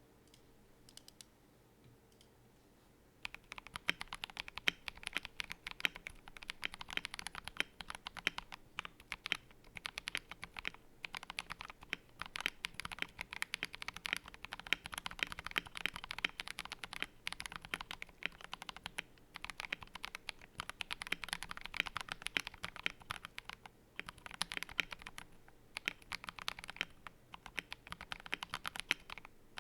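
Fast typing on a KBD67 Lite mechanical keyboard with Boba U4T tactile switches, a PC plate and ASA-profile keycaps: a dense run of rapid key clacks with brief pauses. It starts about three seconds in, after a few isolated key presses.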